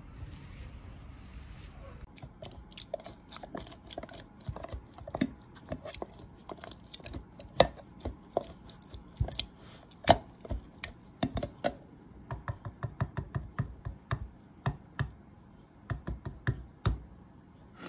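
Wire whisk stirring and mashing soft persimmon pulp in a plastic jar of homemade persimmon vinegar, with wet squelches and irregular clicks of the whisk against the jar, several a second. The clicks start about two seconds in and are the loudest part.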